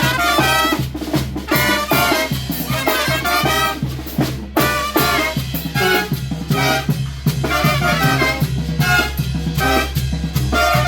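A Mexican banda de viento (brass band) playing: trumpets and other brass over drums with a steady beat.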